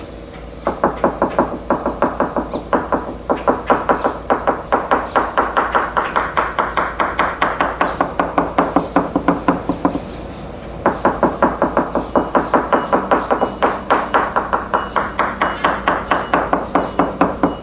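Small hammer tapping quickly along a fiberglass boat hull, about five light taps a second, in two long runs with a short pause in the middle. This is a tap test for voids and delamination, and the tone shifts where internal bulkheads back the hull.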